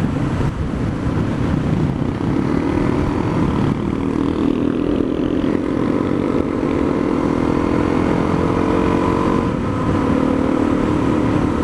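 Honda dual-sport motorcycle's single-cylinder engine running under way, its pitch rising slowly as the bike gains speed, with wind rush on the microphone.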